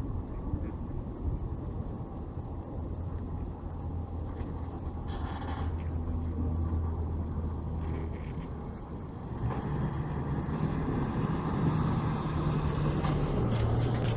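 A motor vehicle's engine running with a steady low hum, which grows louder about ten seconds in as a higher drone joins it.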